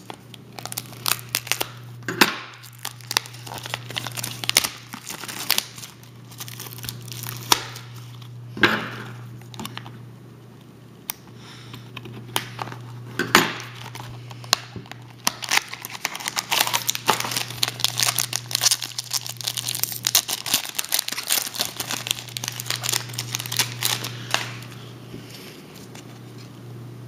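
Foil trading-card pack wrapper being torn open and crinkled in many short crackles, with the cards inside being handled. A low steady hum runs underneath.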